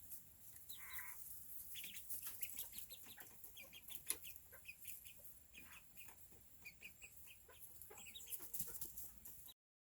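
Serama chickens and chicks: many short, high peeps, with a lower cluck about a second in and faint small clicks. The sound cuts off suddenly near the end.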